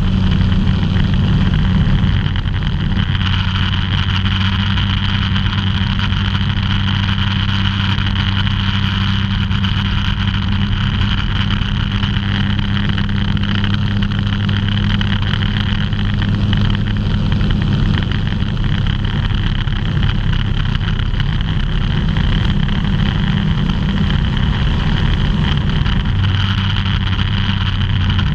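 Ultralight aircraft's engine and propeller droning steadily in flight, heard from inside the open-framed cockpit together with the rush of airflow. The drone's tone shifts slightly about three seconds in and again near the end.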